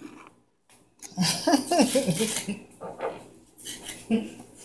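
Indistinct talking in the background with light clinking, after a brief drop to silence near the start.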